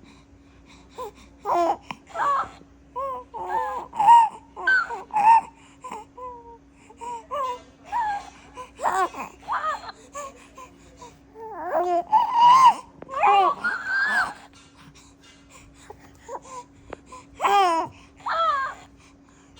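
A baby fussing and crying in many short bursts, with whimpers and babble-like sounds and a longer, louder cry past the middle, over a faint steady hum.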